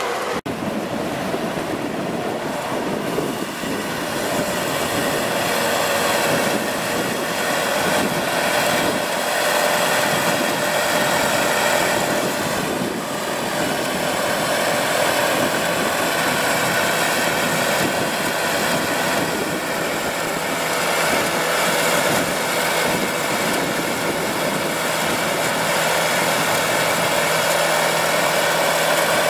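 Land Rover Series pickup's engine running at a steady speed to drive its front-mounted capstan winch, which is hauling in a beach-seine net rope.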